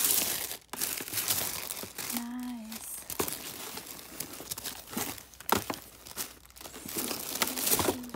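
Paper wrapping and cardboard product boxes being crinkled, rustled and shuffled by hand while a package is unpacked, with several sharp knocks of boxes against each other. About two seconds in, a person gives a short hum.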